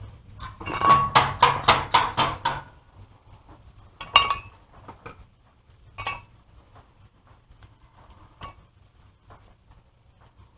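Metal clinking and striking, as of tools on metal parts: a fast run of about eight ringing strikes in two seconds, then three single clinks spaced a couple of seconds apart.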